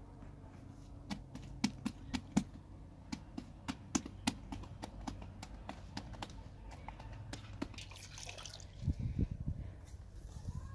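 Naan dough being slapped and patted between the hands to stretch it, a run of sharp irregular pats, with a few duller thumps near the end as the flattened dough is handled into the pit oven.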